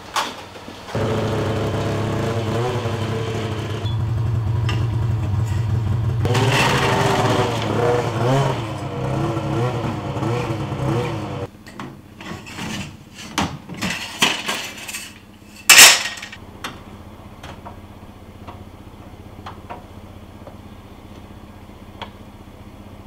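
Arctic Cat M8 snowmobile's two-stroke engine running and revving for about ten seconds, then cutting off suddenly. A run of metallic clanks and scrapes follows, like a folding aluminium loading ramp being handled, with one loud bang near the middle.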